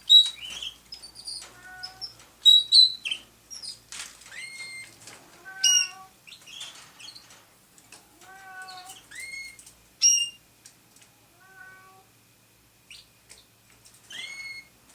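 House cat meowing repeatedly, a drawn-out, wailing cry with some calls rising in pitch: hungry and howling to be fed. Short, high canary chirps come in among the meows.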